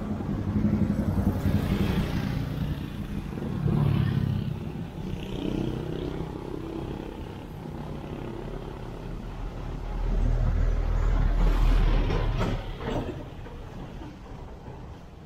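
Motor-vehicle traffic passing on the road, the engine sound swelling and fading several times and loudest about ten to twelve seconds in.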